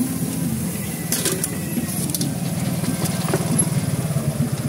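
A small engine running steadily with a low, even throb. A few light clinks sound about a second in.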